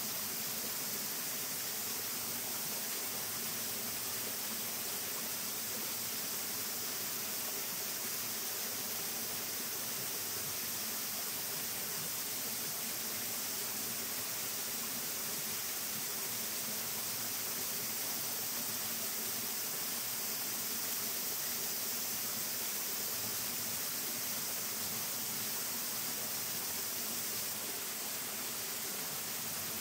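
Steady rushing of running water, such as a mountain stream, with an even high hiss over it.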